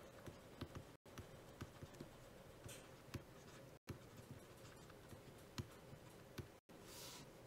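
Faint handwriting with a stylus on a tablet: a string of small, irregular taps and clicks as the pen tip strikes and slides across the surface, with two brief soft hisses.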